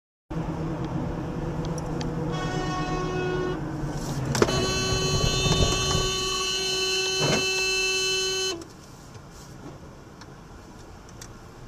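Car horn sounding from the dashcam car: a short blast, then a long blast held about four seconds, over engine and road noise in the cabin. A knock comes just as the long blast starts, and the cabin noise drops much quieter once it ends.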